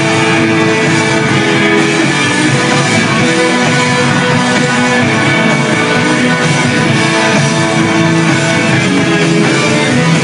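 Rock band playing live at full volume, with electric guitars and drums.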